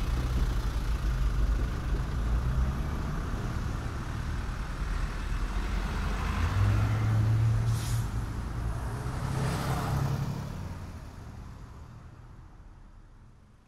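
A low, steady rumble like a motor vehicle's engine running, swelling a little in the middle and then fading out over the last few seconds.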